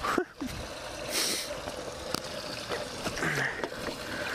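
Water running and trickling, with a few light clicks and knocks scattered through.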